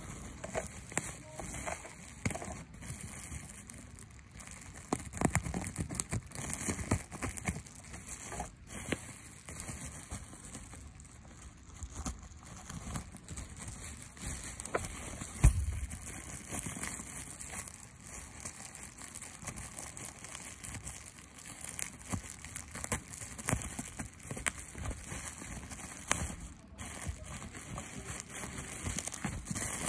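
Plastic packaging crinkling and rustling as it is handled and unwrapped, with irregular small clicks and taps, and one louder thump about halfway through.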